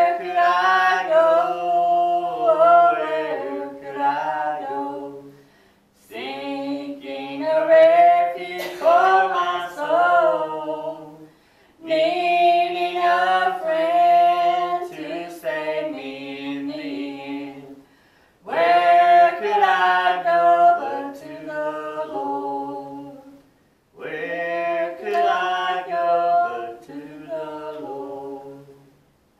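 A woman singing a gospel hymn unaccompanied, a cappella, in five long phrases with short breaths between them.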